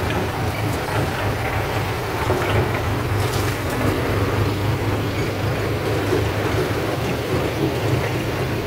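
Six-cylinder Isuzu Rocky diesel engine of a farm-built sugarcane truck idling steadily, a constant low hum with engine clatter above it.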